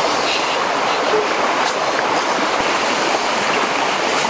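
Steady rushing of a stream flowing over rocks.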